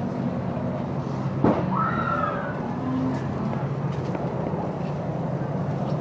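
A steady low hum runs throughout. A single sharp knock comes about a second and a half in, followed by a short, faint call that rises and falls.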